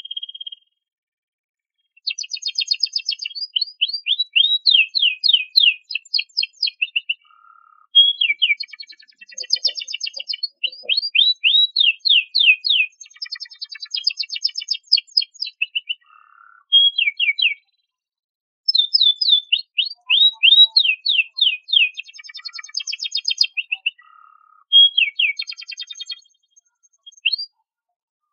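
Domestic canary singing: long phrases of rapid repeated chirps and rolling trills, with short pauses between the phrases.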